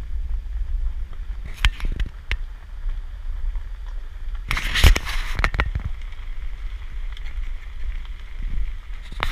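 Wind rumbling on the microphone of a camera outside a moving SUV on a gravel road, with tyre and road noise. Sharp crackling clicks come about two seconds in and a denser burst of them about five seconds in.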